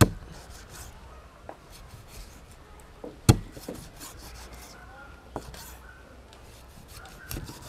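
Knife chopping through shark steaks and striking a wooden chopping board: a few sharp knocks every couple of seconds, the loudest about three seconds in, with some lighter taps between.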